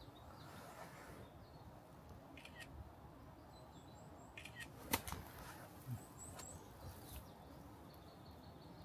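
Quiet forest ambience: faint high bird chirps in short runs of three or four notes, and a few sharp clicks, the loudest about five seconds in.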